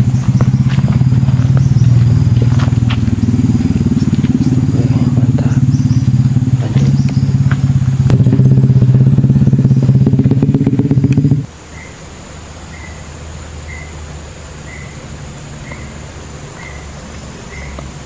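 Small motorcycle engine running loud and close, its pitch stepping up about eight seconds in, then stopping abruptly. After it, a faint high chirp repeats about every two-thirds of a second.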